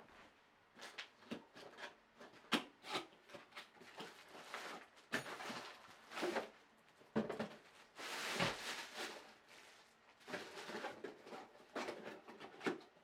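Packaging being handled and opened: irregular rustling, crinkling and small knocks, with a longer rustle about eight seconds in.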